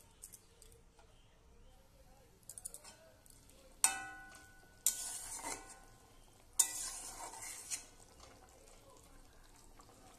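Metal spatula stirring curry in a steel kadai. It strikes the pan with a ringing clank about four seconds in, scrapes the pan, then clanks and scrapes again about two and a half seconds later.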